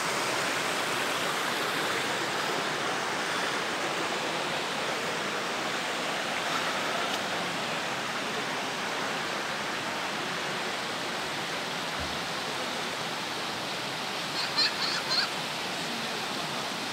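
Shallow stream running over stones and gravel, a steady rush of water. About three quarters of the way through comes a brief burst of a few short high calls.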